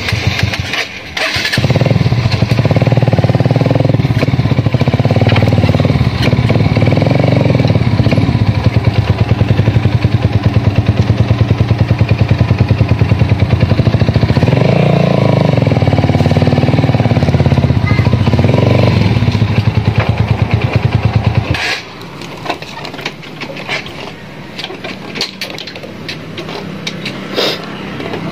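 Motorcycle engine starting about a second and a half in, then running loudly with several blips of the throttle. About 22 s in it drops to a much quieter running sound with light rattles and clicks, and builds again near the end.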